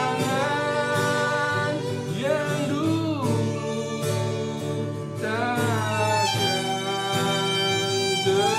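Music: a melody that glides up and down over sustained chords.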